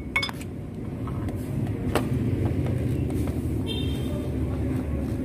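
Steady low rumble of a vehicle engine running, with a couple of sharp metallic clicks and a brief high ring from tools at the belt tensioner.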